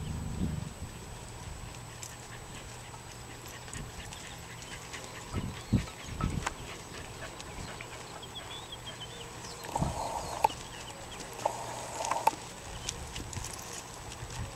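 Horse moving at a walk and jog on a loose dirt arena, with a few scattered thuds of hoofbeats over a quiet outdoor background.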